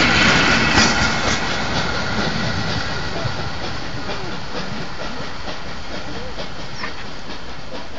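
Old steam train moving along the track: a loud rush of steam hiss and running noise with sharp clicks, loudest about a second in and slowly fading away.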